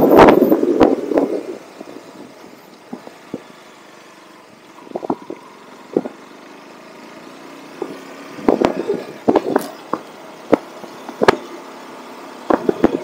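Motorcycle riding on a rough mountain road, heard through the camera's microphone. Loud wind buffeting at the start dies away after about a second and a half, leaving a quieter stretch of riding noise with scattered knocks and rattles. Gusts come back briefly in the middle, and the buffeting swells again near the end.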